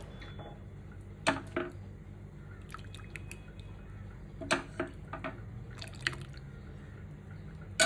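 Rasam poured from a steel ladle into a bowl of rice, liquid splashing and dripping, with a few short clinks of the ladle against the bowl. A steady low hum runs underneath.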